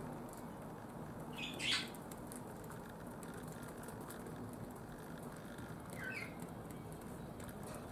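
Young feral pigeon squeaking twice: a short high-pitched squeak about a second and a half in, the loudest sound, and a fainter one about six seconds in, over a steady low background hiss.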